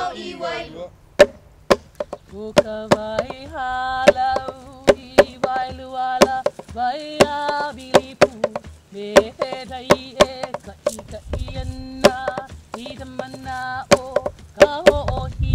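Hawaiian hula chant: one chanter holding long wavering notes, accompanied by sharp hand strikes on an ipu gourd drum. A low rumble comes in near the end.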